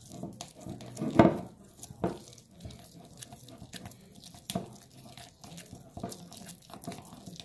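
A spatula stirring a wet cornstarch and dish-soap mixture in a bowl: irregular wet squelching and scraping, with a louder knock about a second in.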